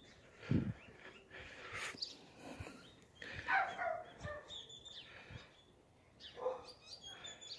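Faint outdoor sounds: a dog barking a couple of times and small birds chirping, with a soft low thump near the start.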